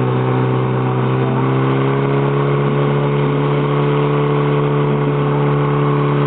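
Portable fire pump engine running at high revs with a steady pitch, driving water from the tank through the suction hose out to the nozzles during a firefighting-sport attack.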